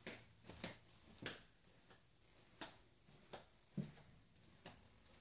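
Faint, irregular footsteps tapping on a hard floor, over a faint steady high-pitched whine.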